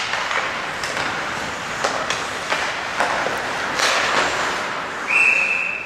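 Ice hockey rink sound: an even arena hubbub with sharp clacks of sticks on the puck and boards, then a single steady high referee's whistle for just under a second near the end.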